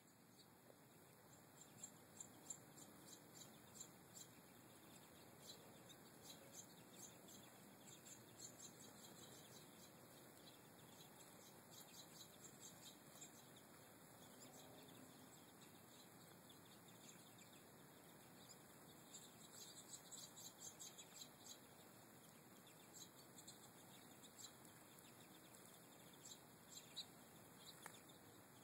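Faint, high twittering chirps of a flock of American goldfinches, coming in scattered clusters over a steady background hiss.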